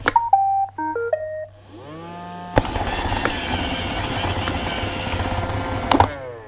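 iRobot Roomba started with a button click: it plays its short start-up tune of beeping tones, then its motors spin up with a rising whine into a loud steady vacuum-and-brush run. After about three and a half seconds the motors wind down with a falling whine and stop.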